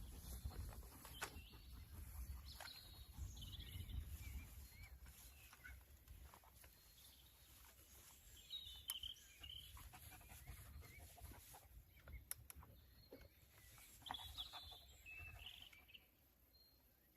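Faint bird chirps, a few short calls now and then, over a low outdoor rumble.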